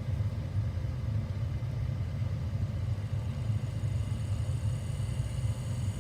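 Small DC hobby motor running, powered by a micro:bit through its 3V and GND pins, with a steady low hum. A faint high whine comes in over the second half.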